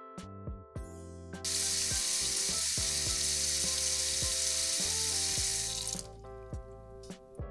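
Sizzling as of food frying in a pan, starting about a second and a half in and stopping about six seconds in, over soft plucked background music.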